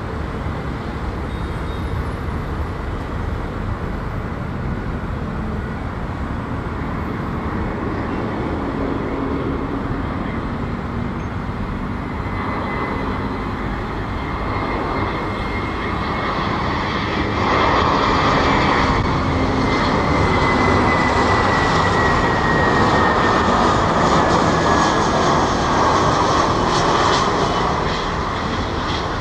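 Airbus A319 jet engines on final approach: a steady rumble with a high whine that grows louder about 17 seconds in, the whine sliding slowly down in pitch as the airliner closes in and passes.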